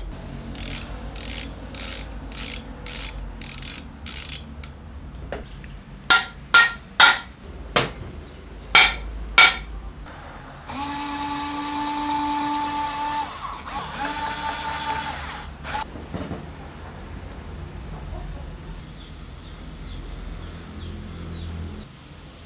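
Screw-driving on metal: a run of even ratcheting clicks, then several sharp loud clicks, then a small electric screwdriver's motor running steadily twice, each for about two seconds, driving screws into the gear housing.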